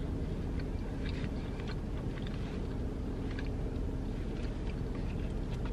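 Faint wet chewing and mouth clicks of a person eating a bite of chopped pork barbecue, over the steady low hum of the car.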